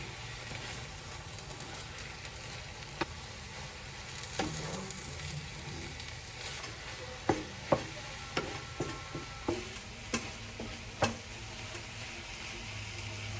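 Food sizzling as it fries in a pan while it is stirred. A run of sharp knocks of a utensil against the pan comes in the second half.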